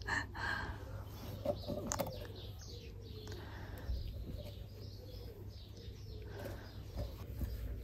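Faint chirping and cooing animal calls over a low steady rumble.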